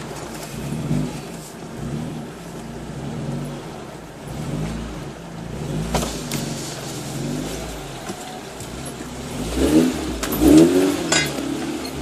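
Suzuki SJ413's four-cylinder engine heard from inside the cab, pulling in low gear through mud and water, its revs rising and falling with the terrain. Near the end it is revved harder twice, with a few knocks.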